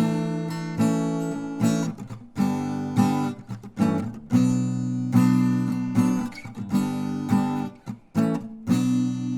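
Acoustic guitar strumming chords in a steady rhythm, starting suddenly out of silence.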